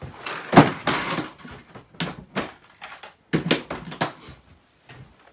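A string of knocks and clatters, the loudest about half a second in and another bunch around three and a half seconds: objects on a cluttered workbench being moved about and picked up while rummaging for small parts.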